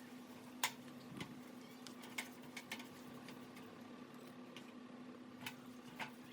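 Scattered light clicks and taps of small metal parts and tools being handled on a workbench, about a dozen irregular strikes with the sharpest about two-thirds of a second in, over a steady low hum.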